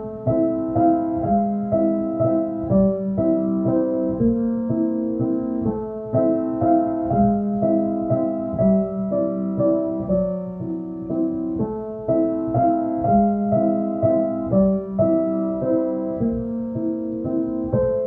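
Background piano music: a steady run of single notes and chords changing about twice a second.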